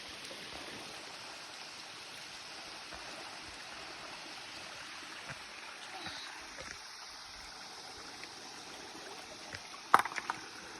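Steady rush of stream water flowing at a waterfall, with a few sharp clacks near the end.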